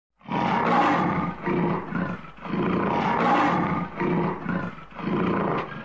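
A lion roaring, a run of about five rough roars with short breaks between them.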